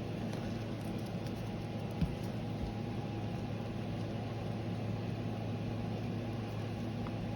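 A steady machine hum with hiss, like a fan or motor running, and a single small knock about two seconds in.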